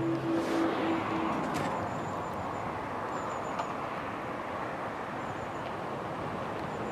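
A steady wash of road-traffic noise at the level crossing as the barriers finish rising, slowly fading. A steady hum cuts off about a second in. There are faint high chirps of birds.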